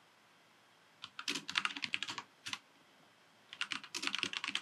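Computer keyboard typing in two quick runs of keystrokes, the first starting about a second in and the second in the last second or so.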